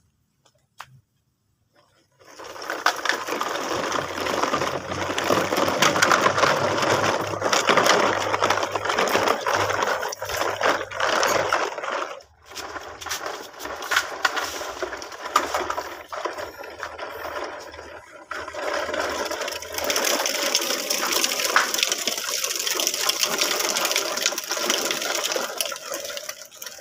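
Long plastic toy truck loaded with toy cars rolling along the floor, its wheels rumbling and the load rattling, starting about two seconds in with a couple of brief pauses.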